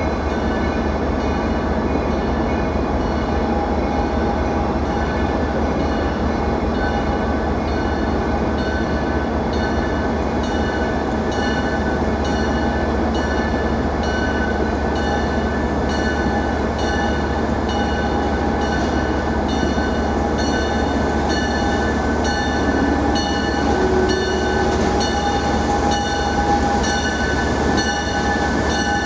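Steady rumble of a moving passenger train, with several steady whining tones over it.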